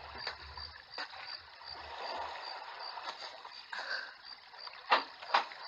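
Animated night ambience of water lapping against a stone embankment, under a thin high chirp that repeats evenly about two or three times a second. A couple of sharp knocks stand out near the end.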